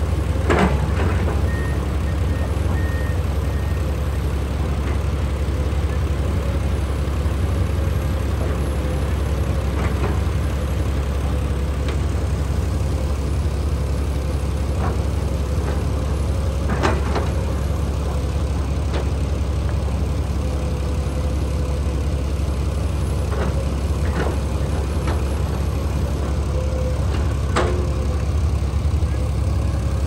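Diesel engines of Komatsu earthmoving machines, a crawler bulldozer and an excavator, running steadily at low revs, with a few sharp metallic clanks now and then.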